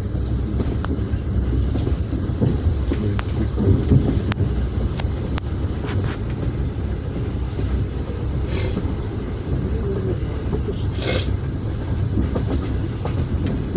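Passenger train heard from inside a platzkart sleeper carriage: a steady low rumble of the carriage running, with scattered sharp clicks and knocks of the wheels on the rails. There is a brief louder rush about eleven seconds in.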